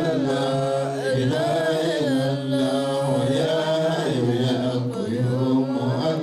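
A man's voice chanting religious verses in long, held notes that waver and glide in pitch with little break.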